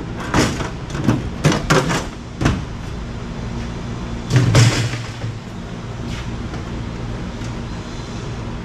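Sheet-metal parts of a microwave oven being handled during teardown: several quick clanks and scrapes in the first two and a half seconds, then one heavier thump about four and a half seconds in as a piece is dropped into a bin, over a steady low hum.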